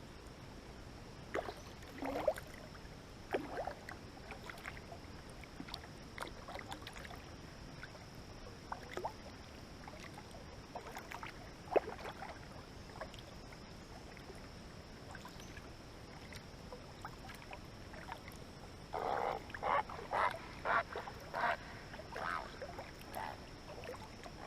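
Canoe paddling: a paddle dipping and splashing in the water, with scattered small knocks and splashes, then a quick run of about eight splashes near the end.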